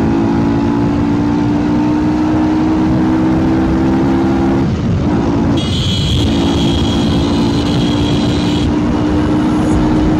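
Yamaha R15's single-cylinder engine through a loud exhaust, held at steady revs while riding. The note cuts out briefly about halfway through, then comes back at the same pitch. A high steady tone sounds for about three seconds in the middle.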